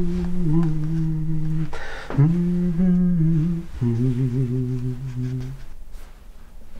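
A man humming a slow tune in held notes, with short breaks between phrases; the humming stops about five and a half seconds in.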